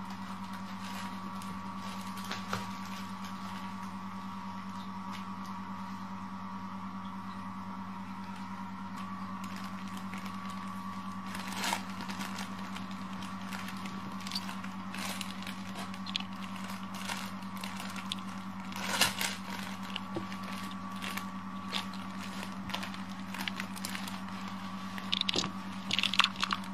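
Kittens scrabbling in and around a fabric play tunnel: scattered scratchy rustles, scrapes and clicks, busier near the end, over a steady electrical hum.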